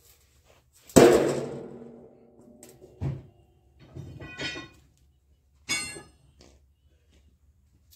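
A long steel sheet falls flat onto another sheet with a loud clang that rings and fades over about a second. A duller thud and two shorter ringing metal clanks follow.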